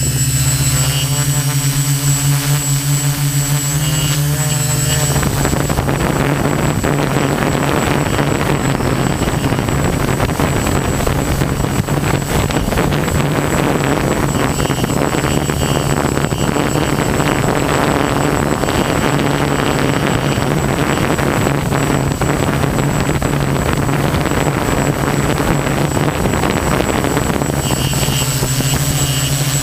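Quadcopter's electric motors and propellers droning steadily, heard through its onboard camera, with a high constant whine above the hum. A loud rushing noise covers the drone from about five seconds in until near the end.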